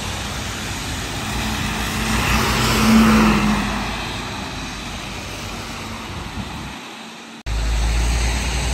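A bus passing on a wet road: engine hum and tyre hiss swell to a peak about three seconds in, then fade. Near the end the sound breaks off abruptly and a louder, lower traffic rumble takes over.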